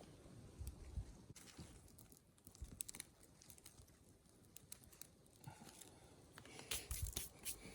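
Faint rustling with scattered light clicks and taps, growing busier and louder near the end.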